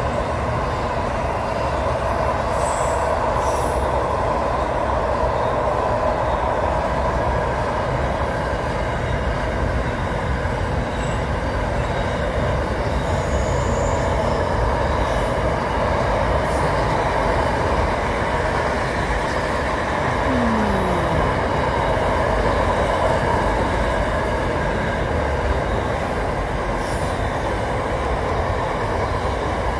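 Container freight train rolling past: a continuous, even rumble of wagon wheels on the rails, with a steady high whine from the wheels.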